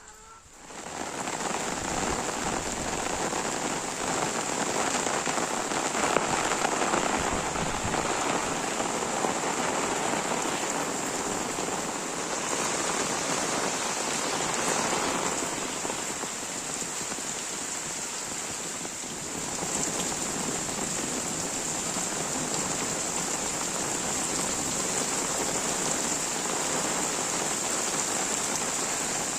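Steady rain falling, a dense even hiss that fades in over the first second.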